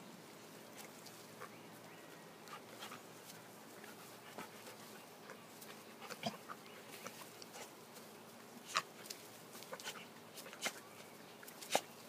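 Dogs play-fighting, heard faintly: scattered short dog noises, with a few sharper, louder ones in the second half.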